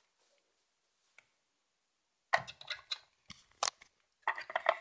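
Light, irregular plastic clicks and taps of a Littlest Pet Shop figure being hopped over a plastic toy house, starting about halfway through after near silence.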